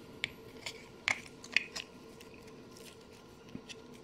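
Handling noise from a small plastic action figure: a few light clicks and taps as fingers pinch and move its arm and soft plastic robe.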